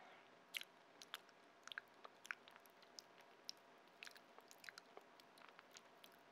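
Close-up chewing of raw fish: soft, wet mouth clicks at an irregular pace, several a second at times.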